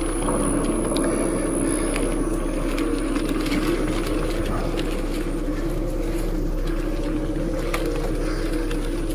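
Mountain bike riding at speed, its tyres rolling over pavement and onto a wooden boardwalk with a steady hum, and a few faint clicks along the way.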